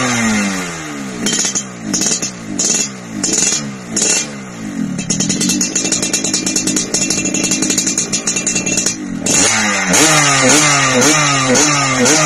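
Yamaha RX-King two-stroke single-cylinder engine with an aftermarket racing exhaust, its throttle blipped repeatedly so the revs rise and fall. About five seconds in it settles to a crackling, popping idle for roughly four seconds. Near the end the quick blips start again, about two a second.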